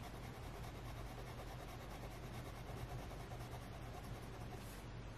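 Fine nib of a Kaweco AL Sport fountain pen scratching lightly back and forth on a Hobonichi planner page, scribbling a small ink swatch, over a low steady hum.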